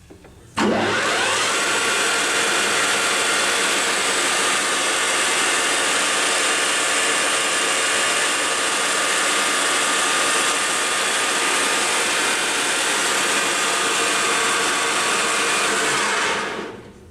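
YCI Supermax LG-1768H engine lathe spindle starting up at 1,600 RPM, whining up to speed, running steadily with a high mechanical whine, then winding down and stopping near the end.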